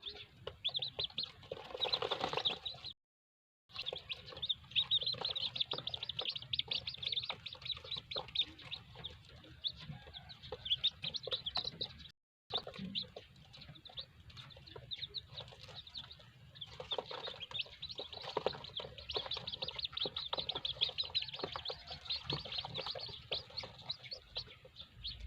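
A brood of newly hatched chicks peeping constantly, many high chirps overlapping, with some lower clucking mixed in at times. The sound cuts out completely twice for a moment.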